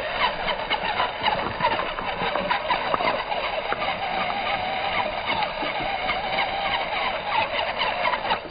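The dual Mofo RC Big Block electric motors of a 1/16-scale RC rock bouncer are whining, their pitch rising and falling with throttle and load as it crawls over river rocks. The tires and chassis click and clatter against the stones.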